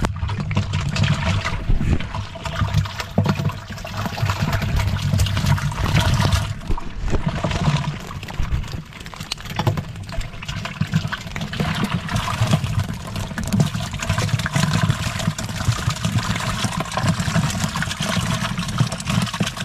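Water pouring and splashing out of a slatted fish trap as it is shaken out into a plastic drum, with many small knocks and rattles of the slats against the plastic, over a steady low rumble.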